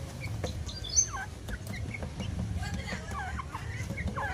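Grey francolins calling: many short, overlapping calls that dip and rise in pitch, growing busier about halfway through, over a steady low hum.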